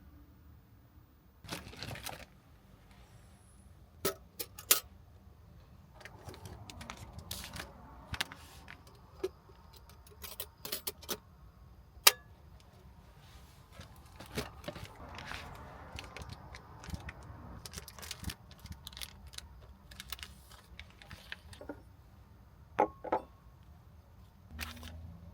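Small objects being handled close by: a string of irregular clicks, taps and rustles, with one sharp click standing out about halfway through.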